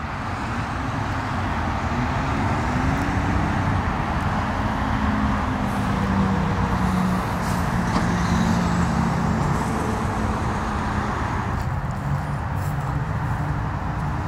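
Steady road traffic noise, with a vehicle engine hum that rises about two seconds in and fades out around eleven seconds.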